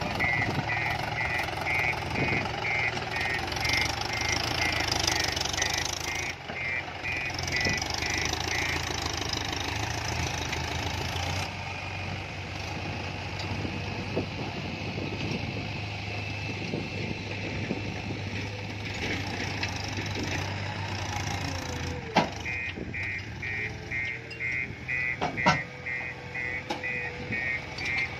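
Tractor diesel engine running steadily as it pulls a trailer loaded with soil. A reversing alarm beeps about twice a second through the first nine seconds and again over the last six. Two sharp knocks come near the end.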